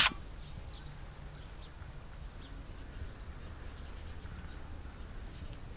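Quiet outdoor ambience in open moorland: a faint low steady rumble with scattered, faint, short bird chirps.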